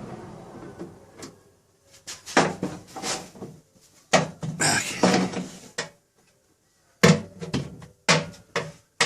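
An irregular run of sharp metal clunks and knocks from a 1951 Chevrolet truck's passenger door latch being worked and tapped, the catch sticking and needing a knock to free it.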